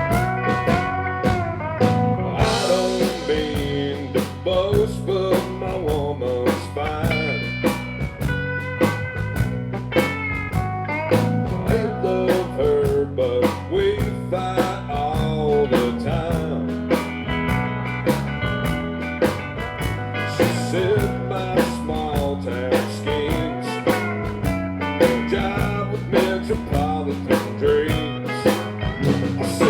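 A live country band playing a song, with electric guitar, bass and a drum kit keeping a steady beat.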